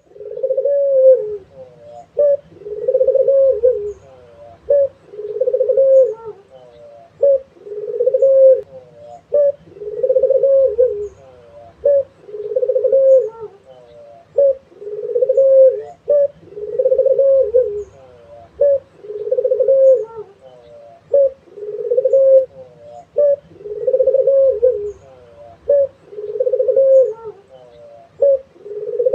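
Barbary dove (puter) cooing steadily, a short clipped note followed by a longer rolling coo, repeated about every two and a half seconds.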